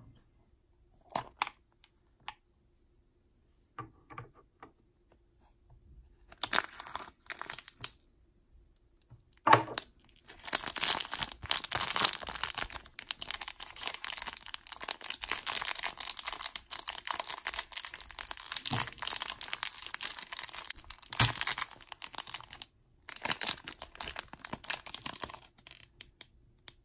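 Thin plastic bag of shredded paper filler being handled and torn open: a long stretch of crinkling and tearing from about ten seconds in, after a few scattered light taps of hard plastic toy parts.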